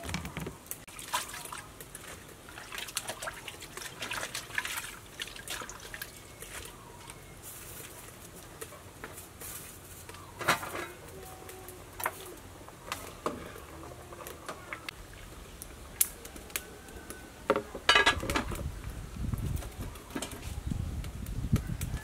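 Water trickling and splashing as leafy greens and cucumbers are washed by hand in a plastic colander, with scattered clinks and knocks of pots and lids. A cluster of knocks comes a few seconds before the end, followed by a low rumble.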